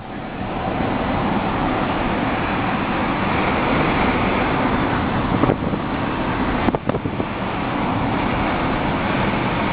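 Steady rush of wind and road noise from a moving car with its sunroof open. There is a short click about two-thirds of the way through.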